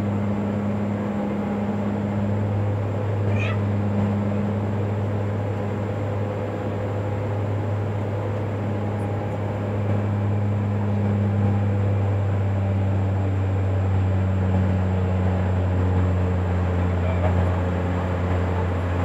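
Cabin drone of a Dash 8-Q400 turboprop climbing after takeoff: the engines and six-bladed propellers give a steady low hum with a fainter higher tone above it.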